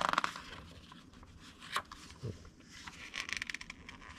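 Glossy magazine pages being handled and turned: paper sliding and rustling as the pages are separated, with a short flurry of quick crinkling ticks about three seconds in.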